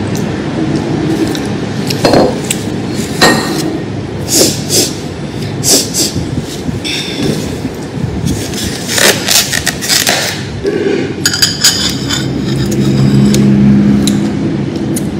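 Dishes and utensils clinking and knocking, about a dozen sharp strikes with a glassy ring, over a steady background rumble. A low droning hum swells near the end.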